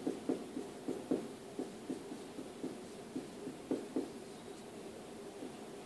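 Marker writing on a whiteboard: short, irregular strokes and taps in quick succession, fewer near the end.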